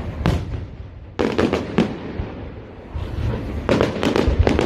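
Fireworks display: a single bang, then a rapid volley of bangs and crackles about a second in, and another volley near the end, over a steady low rumble.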